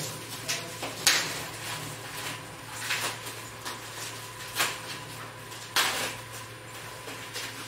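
Rustling and crinkling of white foam packing wrap being pulled and peeled off a scooter's stem tube by hand, in a handful of short bursts. The loudest come about a second in and near six seconds.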